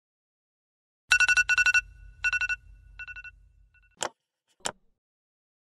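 Smartphone on a bedside table ringing: four short bursts of a rapid trilling electronic ringtone, each fainter than the last, over a low buzz, then stopping. Two sharp taps follow about half a second apart.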